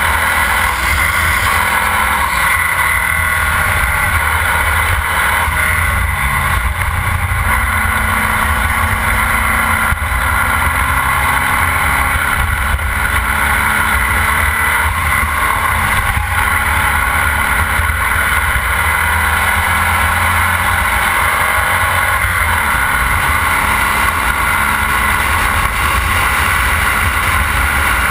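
Formula Vee race car's air-cooled Volkswagen flat-four engine running hard, heard from the cockpit. Its pitch rises and falls as the car accelerates, brakes and shifts through the corners.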